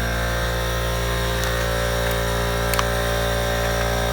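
Steady electrical hum made of several fixed tones, with two faint light clicks in the middle.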